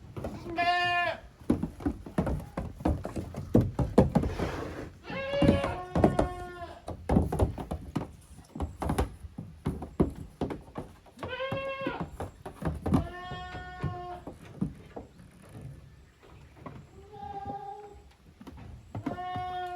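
Young goat kids bleating, about seven separate calls, with many knocks and thuds between them as they play.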